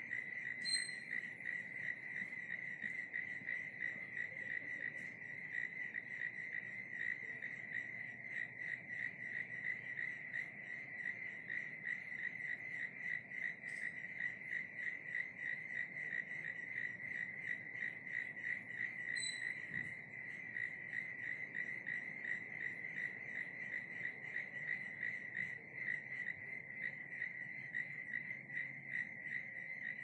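A chorus of crickets chirping, a continuous, finely pulsing trill. Twice, about a second in and again around nineteen seconds, a brief higher chirp cuts in.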